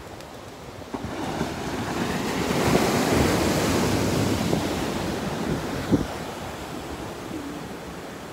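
Ocean surf breaking and washing up the beach, with wind on the microphone; the wash swells about a second in and slowly fades. A brief thump near six seconds.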